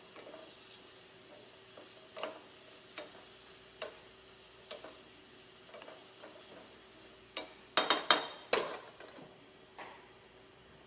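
Vegetables sauteing in a pan, with faint sizzling and light clinks of a utensil against the pan about once a second. About eight seconds in comes a short burst of louder clattering of cookware.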